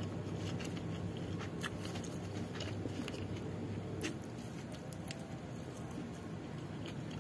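A person chewing a mouthful of nasi pecel, with a few faint, sharp crunchy clicks, over a steady low hum.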